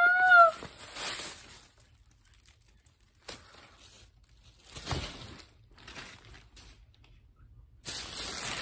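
A high-pitched squeal of excitement that cuts off about half a second in, then short, scattered bursts of paper packaging rustling and tearing as a box is unwrapped. A steady hiss comes in near the end.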